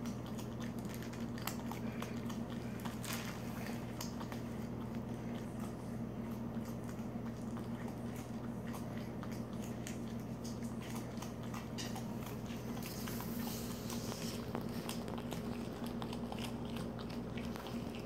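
Raccoon crunching and chewing Cheerios, with quick, irregular small crunches throughout. A steady low electrical hum runs underneath.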